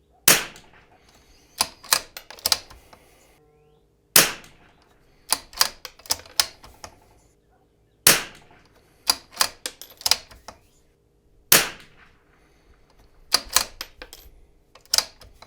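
A Zermatt Rim-X .22 LR bolt-action rifle firing four shots about four seconds apart. After each shot there is a quick run of smaller metallic clicks as the bolt is worked to chamber the next round.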